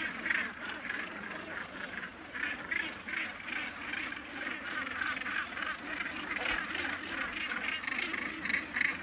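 Northern gannet colony calling: many birds' croaking calls overlap without a break in a continuous chorus.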